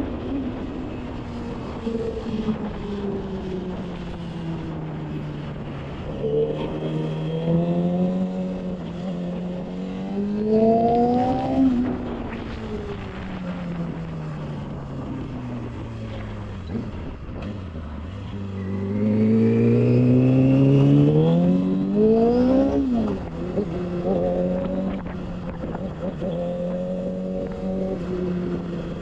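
Yamaha YZF-R6's inline-four engine being ridden through traffic: the revs climb and fall several times, with the longest and loudest pull about two-thirds of the way through, cut off sharply as the revs drop, then the engine settles to a steady cruise. Wind rushes over the microphone throughout.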